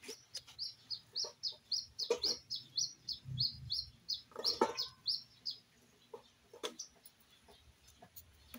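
Chickens: a fast run of short, high, falling chirps, about four a second, that stops about five and a half seconds in, mixed with a few lower clucks and some sharp knocks.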